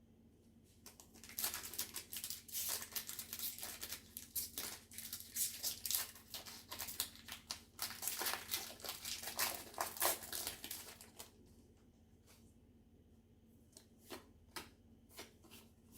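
Foil wrapper of a Pokémon trading card booster pack being torn open and crinkled, a dense crackle lasting about ten seconds, followed by a few light clicks as the cards are handled near the end.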